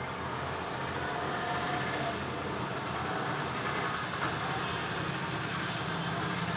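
Steady background noise with a faint low hum. There is a faint click about four seconds in and a brief, louder sharp sound about five and a half seconds in.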